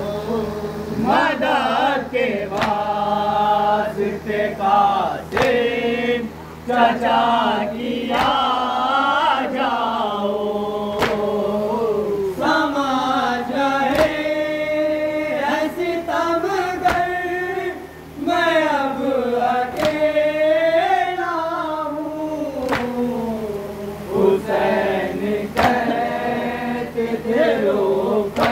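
A group of men chanting an Urdu noha, a Shia lament for Hussain, together into a microphone without instruments. Sharp thumps about once a second keep the beat, from hands striking chests in matam.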